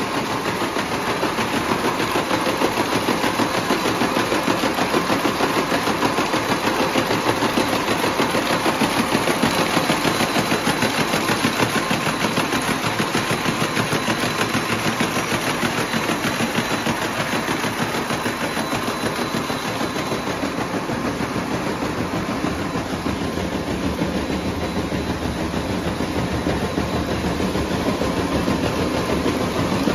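Copper wire braiding machines running: a steady, rapid metallic clatter from the bobbin carriers weaving tinned copper wire into flat braid.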